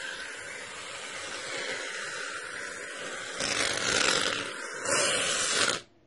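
Aerosol can of shaving foam spraying with a hiss, louder in two longer squirts in the second half, cutting off abruptly near the end.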